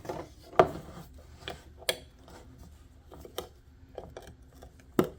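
Small objects being handled on a workbench: a run of irregular sharp clicks and knocks, the loudest about half a second in and another near the end.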